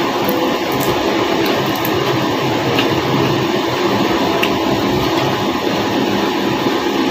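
Steady, even mechanical rumble and hum, with a few faint clicks.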